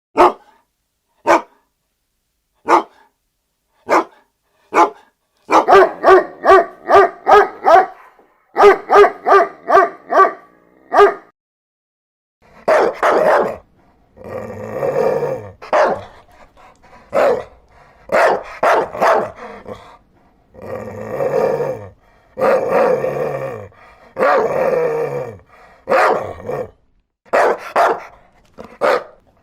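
Dog barking in a series of bouts: single sharp barks about a second and a half apart, then quick runs of three or four barks a second from about five seconds in, then longer, deeper, rougher barks from about twelve seconds in.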